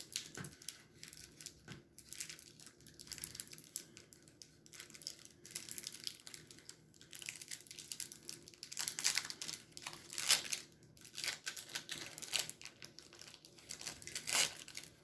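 Plastic trading-card pack wrapper being torn open and crinkled by hand, in irregular rustling crackles with louder bursts near the middle and end.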